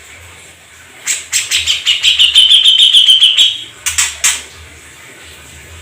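A songbird's rapid, harsh chattering trill of about a dozen notes that speeds up and drops slightly in pitch, followed by two sharp single notes.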